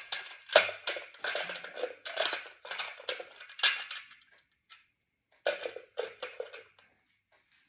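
A plastic distributor cap clattering and clicking against the distributor housing as it is lifted off, with a dense run of rattles. After a short pause comes a second burst of clicks as the cap is set back on.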